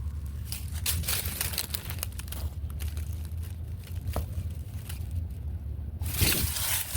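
Footsteps crunching and crackling through dry leaves and brush, in irregular steps with a louder burst of rustling about six seconds in, over a steady low rumble.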